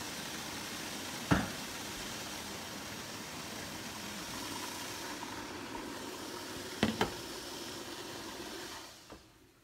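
Steady rushing hiss around a stovetop steamer pot at the boil, with a sharp knock about a second in and a quick double knock near 7 s as the pot is handled with oven mitts. The rushing fades away near the end.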